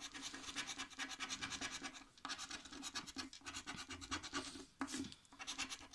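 Scratch-off lottery ticket being scratched with a round scraper: quick back-and-forth scraping strokes across the coating, pausing briefly about two seconds in and again near five seconds.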